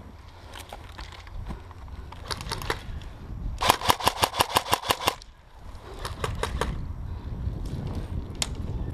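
Airsoft electric gun firing a full-auto burst of about a dozen rapid shots lasting a second and a half, a little before the middle. Shorter bursts of a few shots come about two seconds in and again about six seconds in.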